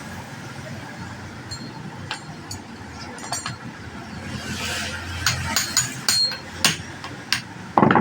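Tools and metal grinder parts knocking and clinking during hand repair work: a string of irregular sharp taps, some with a short ring, the loudest knock just before the end.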